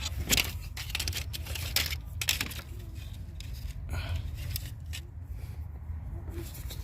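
Scattered clicks, taps and scrapes of hands working at plastic hose clips and connectors in a car's engine bay, over a low steady rumble.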